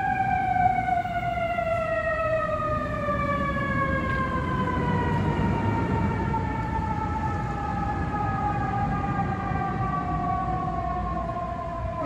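Fire engine siren winding slowly and steadily down in pitch as the engine drives away, with the rumble of the truck and road noise underneath.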